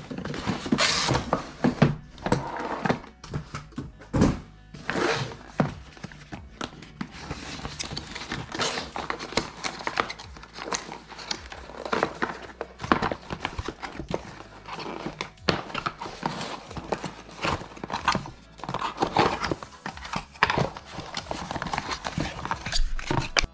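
Background music with many irregular knocks and clicks over it.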